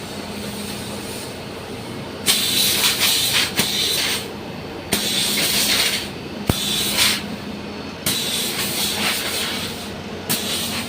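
High-pressure washer spraying in repeated hissing bursts that start and stop abruptly, four times, cleaning an air-conditioning unit. A steady motor hum runs underneath.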